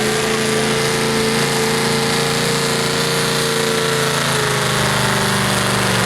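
Truck engine running hard at high, steady revs, its pitch holding with a slight wobble about four seconds in.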